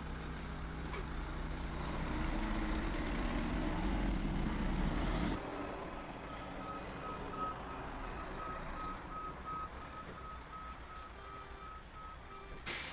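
A hi-rail crane truck's diesel engine runs and revs up with a rising pitch, then cuts off abruptly. What follows is a steady series of short, even backup-alarm beeps as the truck reverses along the track, sped up by double-speed playback. A short sharp burst of noise comes near the end.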